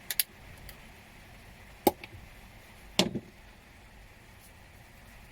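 Small clicks and knocks of electronic scrap being handled on a workbench: a couple of light clicks at the start, then two louder knocks about two and three seconds in, the second followed by a quick rattle.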